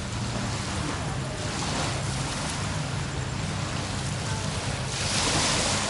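Waterfront ambience: a steady low engine hum under a hiss of surf and wind, which swells about five seconds in.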